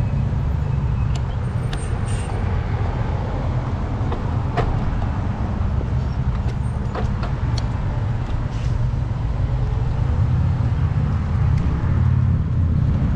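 Steady low wind rumble on the microphone of a bike-mounted action camera while riding, under street traffic noise from nearby cars, with a few light clicks or rattles.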